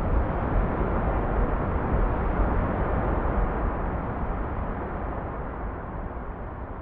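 Ocean surf: a steady, dull rush of breaking waves, heaviest in the low end, slowly fading away over the last few seconds.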